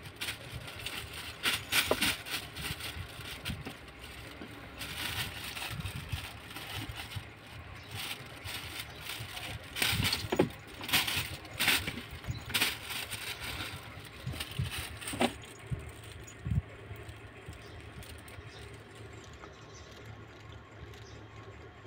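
Thin plastic bag rustling and crinkling in irregular bursts as a kitten paws and bites at it, trying to pull a toy out; the rustling dies down in the last few seconds, leaving a faint steady hum.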